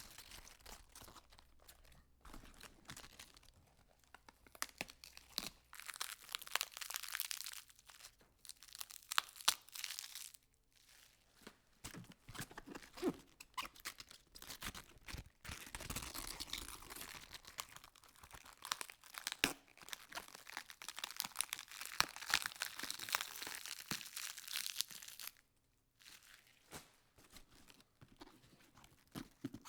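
Lettuce leaves being peeled off a head, a crisp tearing and crackling made of many fine snaps, in several long runs with short pauses between them.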